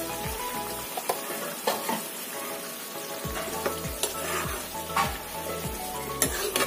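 Black-eyed peas cooking in a pan of masala gravy, sizzling and bubbling, while a steel spoon stirs them. The spoon gives a few sharp scrapes and clinks against the pan.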